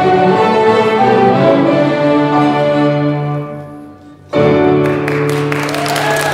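Children's violin ensemble with piano playing the close of a piece: the sustained string chords die away, then a final chord sounds suddenly about four seconds in. Applause starts up just after it.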